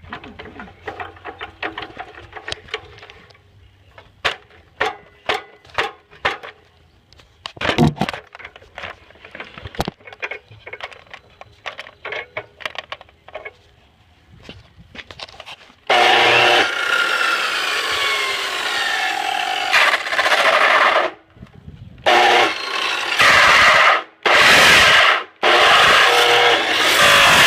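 Clicks and knocks of plastic parts being handled, then, from about halfway, an electric chop saw running loud and cutting into a plastic Nerf blaster, stopping and starting several times near the end.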